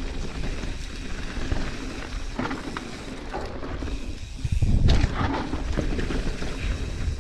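Full-suspension mountain bike descending a rough dirt trail at speed: wind buffets the microphone while the tyres and frame rattle over the ground, with a louder low thump about four and a half seconds in.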